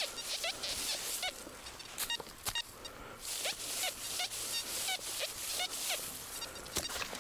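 Footsteps in cold, dry snow: each step squeaks as the snow packs underfoot, about two steps a second, with a few sharp clicks in between.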